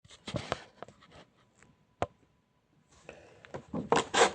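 Handling noise: a few sharp clicks and taps, then a cluster of louder rustling and knocking near the end.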